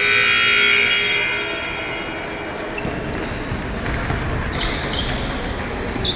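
Gym scoreboard buzzer sounding, fading out about a second in, then the echoing hall background with a few sharp knocks of a basketball bouncing on the hardwood near the end.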